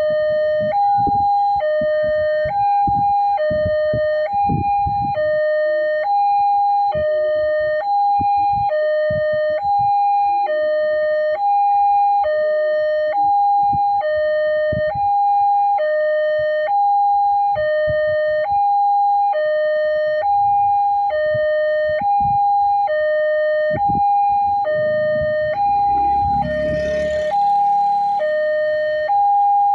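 Railway level-crossing warning alarm from the loudspeaker on the signal post, two tones alternating high and low about once a second without a break, warning of an approaching train. Near the end a brief rumbling noise joins in.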